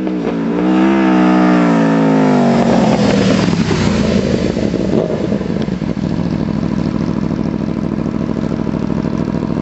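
Aprilia RSV4's V4 engine through an Austin Racing aftermarket exhaust, coming on hard with its pitch rising and wavering, then falling about two and a half seconds in as the bike slows past. For the last few seconds it idles close by with an uneven, pulsing beat.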